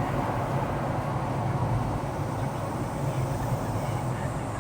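Steady low vehicle rumble with a constant hum and road noise, holding level throughout.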